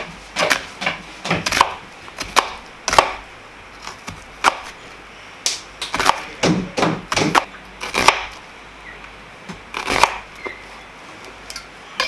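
Chef's knife slicing a large onion into strips and striking a plastic cutting board: a series of sharp, irregular knocks, one per cut, with a few short pauses.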